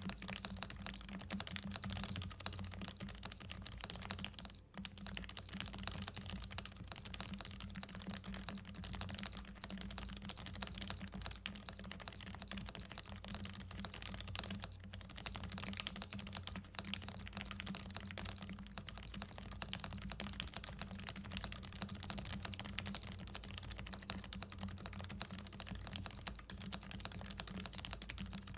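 Custom mechanical keyboard, a Noxary Evija with a brass bottom, being typed on continuously and quickly, keystrokes clacking in a dense stream with a brief pause about four and a half seconds in.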